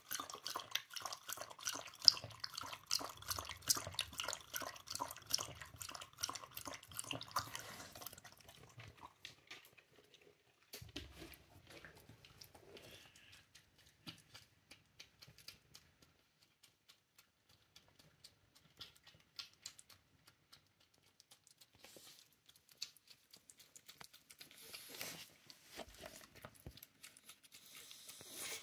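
A Shiba Inu lapping water from a stainless steel bowl in rapid, wet strokes for about the first eight seconds. After that, only faint, scattered mouth sounds as it lies down.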